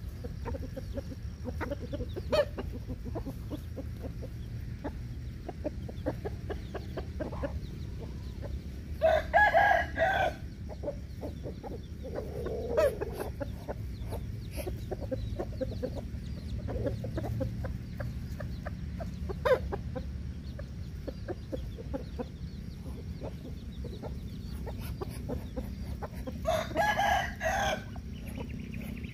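Backyard chickens clucking, with a rooster crowing twice: about nine seconds in and again near the end. A steady low rumble sits underneath.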